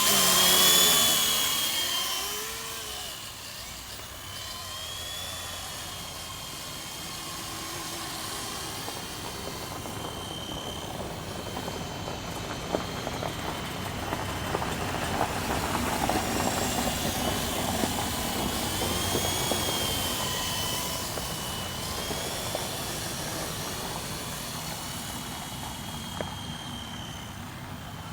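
WLtoys V912 fixed-pitch RC helicopter in flight, its electric motor and rotor giving a high whine that rises and falls in pitch as the throttle changes. It is loudest over the first two seconds, then steadier and a little softer.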